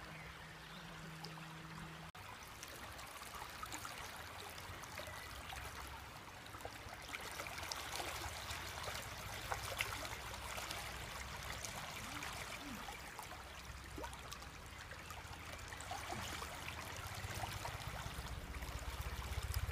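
Mountain stream in spring flow, water running and trickling over rocks with small splashes throughout. A low steady hum sounds under it for the first two seconds.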